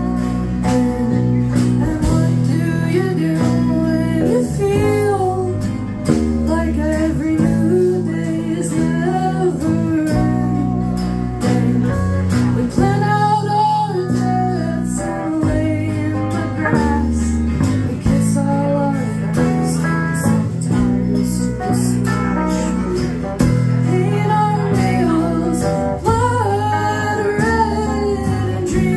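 Live band music: a woman singing over a strummed acoustic guitar, with electric guitar and bass guitar, the bass notes held steady underneath.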